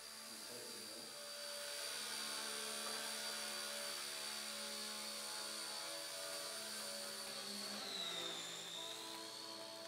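Small electric RC helicopter in flight: a steady high-pitched motor whine over a lower rotor hum. Near the end the whine dips in pitch for about a second, then rises back.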